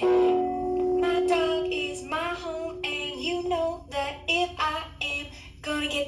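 A woman singing an improvised melody to her own strummed acoustic guitar, heard over a video call.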